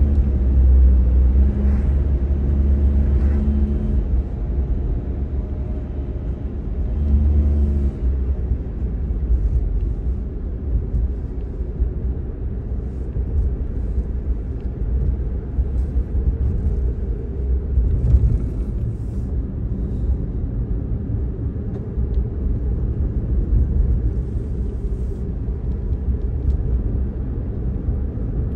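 Cabin noise of a car on the move: a steady low rumble of road and engine. The engine's hum stands out more in the first few seconds and again about seven seconds in.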